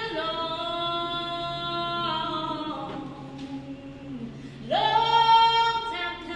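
A woman singing a cappella, holding long sustained notes. About three-quarters of the way through she slides up into a louder held note.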